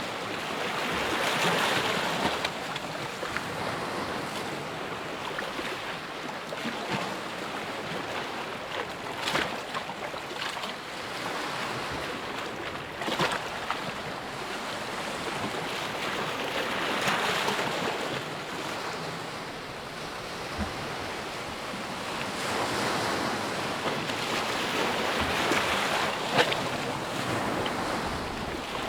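Flowing water rushing steadily, swelling louder now and then, with a few short splashes.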